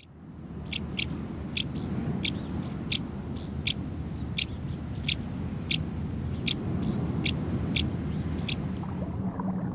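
A bird repeating short, high single calls, about every two-thirds of a second, over a steady low background rush.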